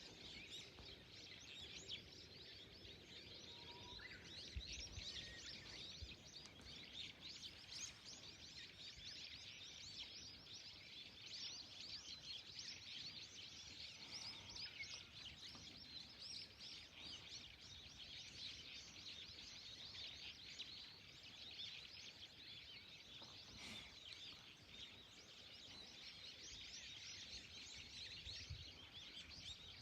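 Faint, continuous chirping of many small birds, their short calls overlapping throughout.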